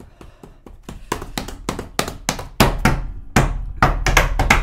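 A rapid, irregular series of thumps and taps, growing louder and heavier from about two and a half seconds in.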